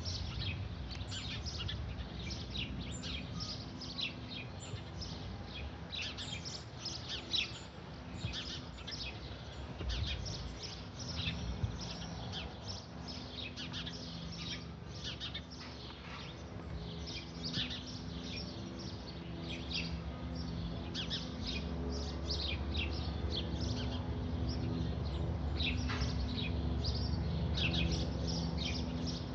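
Songbirds chirping and calling throughout, over the low, steady hum of an Airbus AS350/H125 helicopter, which grows louder from about two-thirds of the way in as the helicopter approaches.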